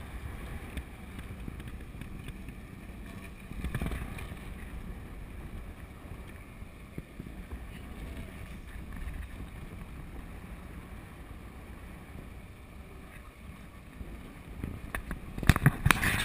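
Wind buffeting the microphone over the steady rush of water along a moving sailboat's hull, with a stronger gust about four seconds in. A few loud thumps and heavier buffeting near the end.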